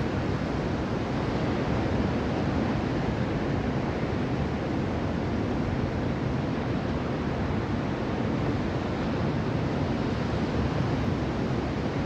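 Mediterranean surf breaking on a sandy beach: a steady, unbroken rushing wash of waves.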